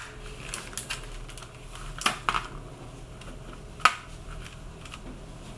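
Small knife cutting through a chocolate bonbon's tempered chocolate shell: a few sharp cracks and clicks, loudest about two seconds in and again near four seconds.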